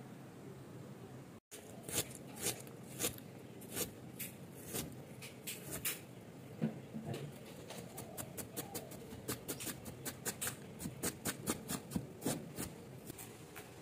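Large steel kitchen knife slicing and chopping on a wooden chopping board, with sharp knocks of the blade against the board. The strokes come about two a second at first, then quicken to about three or four a second from about ten seconds in.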